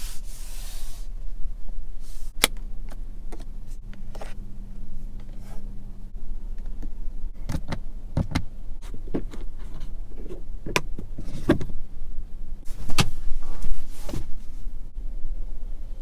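Sharp clicks, taps and knocks of a car's interior trim and switches being handled, including an overhead roof switch being pressed. A low electric hum runs for a few seconds and then stops.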